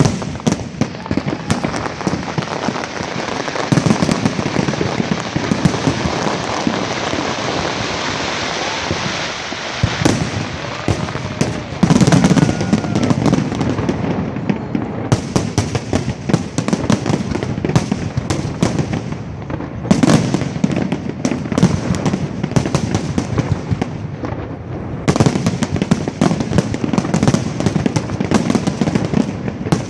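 Fireworks display: a continuous crackle with many quick bangs on top, heaviest in salvos about 12 s and 20 s in and in a dense barrage near the end.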